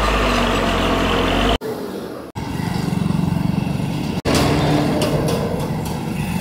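A motor vehicle's engine running steadily with a low hum, under outdoor roadside noise. The background changes abruptly a few times, and a few light clinks sound about five seconds in.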